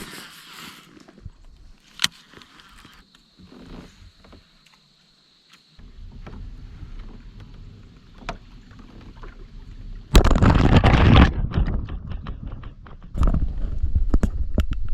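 Handling and water noise on a fishing kayak: a sharp click about two seconds in, then low rumbling, a loud rush of noise about ten seconds in, and clattering knocks near the end.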